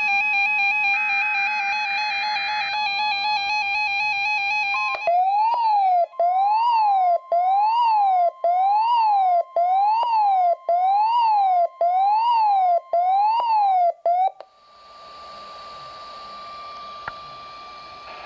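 NOAA Weather Radio's weekly test of its warning alarm tone, setting off weather alert receivers. A fast-warbling electronic alarm gives way, about five seconds in, to a siren sweeping up and down about once a second, eight times over a steady tone. The alarms cut off together, leaving the steady alarm tone over radio static for a few more seconds.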